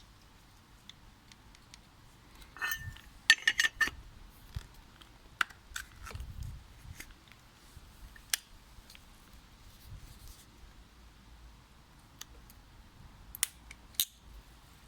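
Hard plastic and metal parts of an angle grinder and its packaging being handled: a cluster of clicks and rattles about three seconds in, scattered taps and clinks after it, and two sharp clicks near the end.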